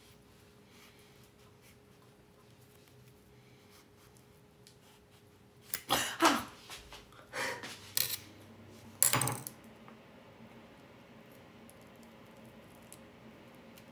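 A quick run of sharp knocks and clatter, close to the microphone, starting about six seconds in and over within about four seconds, with a quiet room before and after.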